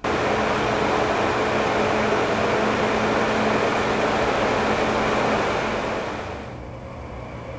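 Builder-grade economy bathroom exhaust fan running loud, a steady whooshing rush with a low hum. About six seconds in it gives way to a much quieter Delta Breez Slim DC brushless bathroom fan running with a soft steady whir.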